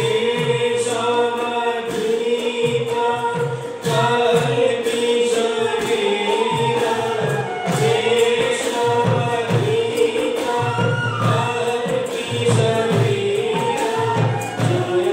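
Live devotional dance music: male voices singing over a sustained harmonium tone, with a drum beating a steady rhythm and cymbal-like strokes.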